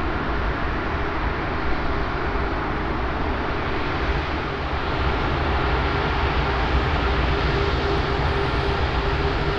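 Jet engines of a Lufthansa Airbus A340-600, four Rolls-Royce Trent 500 turbofans, running with a steady loud rumble and hiss and a steady whine over it.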